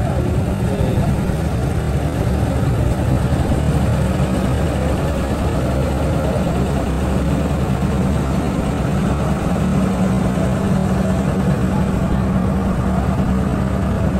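Busy market-street ambience dominated by the steady engine noise of traffic running nearby. A low hum underneath grows stronger about two-thirds of the way through.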